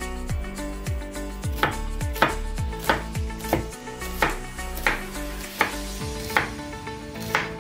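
Kitchen knife chopping red onion and spring onion on a wooden cutting board: a steady series of sharp knocks on the board, about one every two-thirds of a second.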